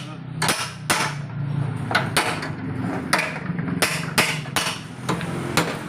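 Hammer blows in an irregular rhythm, about nine sharp strikes with short ringing tails, typical of panel beating on a collision-damaged car body. A steady low hum runs underneath.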